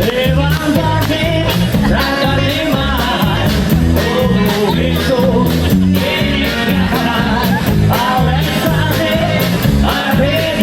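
Rockabilly band playing live, a bass line stepping from note to note under a steady drum beat, with a voice singing over it.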